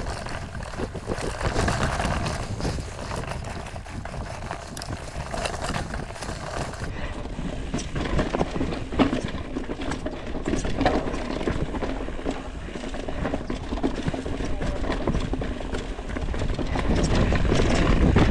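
Mountain bike rolling over rocky singletrack covered in dry leaves, its tyres crunching through the leaves and clattering over rocks, and the bike rattling over the bumps. It gets louder near the end.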